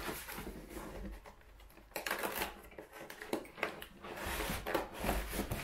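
Cardboard box being pried at by hand: irregular scraping, rustling and sharp clicks of the cardboard flaps.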